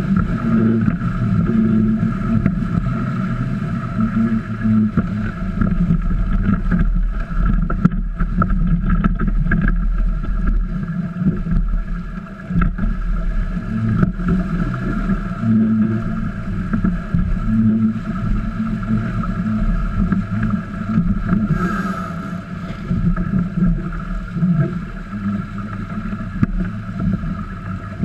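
Steady hull and water noise of a small trimaran sailing: water rushing and slapping along the hull, carried loudly through the boat-mounted camera, with some wind.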